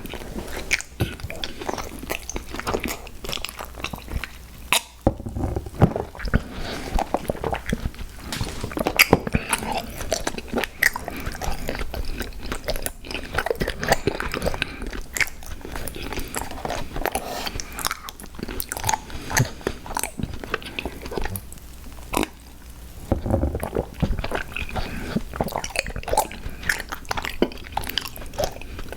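Close-miked eating sounds: a person biting and chewing sweet snacks, with many small irregular clicks and crunchy bites.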